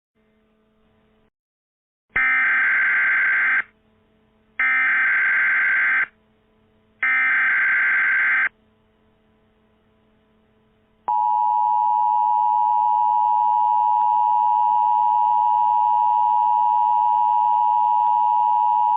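Emergency Alert System SAME header: three screeching digital data bursts of about a second and a half each, then, after a short pause, the steady two-tone EAS attention signal for about eight seconds, which cuts off abruptly. This sequence announces that an emergency alert message is about to be read.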